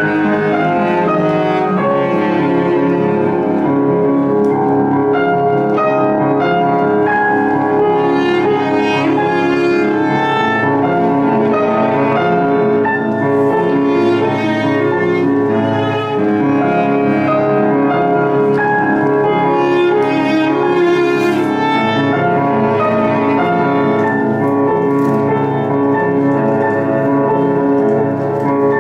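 Live cello and Kawai grand piano playing a classical chamber piece together, the cello bowed over the piano.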